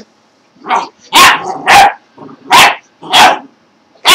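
A dog barking in play: a quick run of about five loud, sharp barks, roughly two a second.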